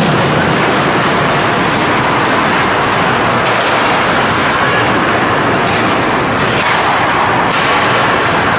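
Steady, loud rushing noise of an ice hockey rink during play, with a few brief sharper scrapes over it.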